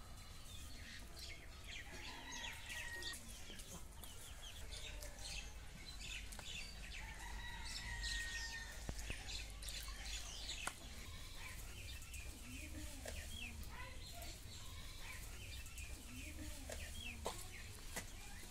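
Domestic chickens clucking now and then, with many short, high chirps of small birds.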